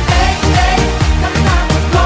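Upbeat pop dance music with a steady drum beat and no singing in this stretch.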